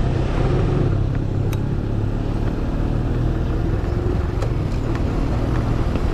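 Small underbone motorcycle's engine running steadily while riding, with wind noise on the microphone.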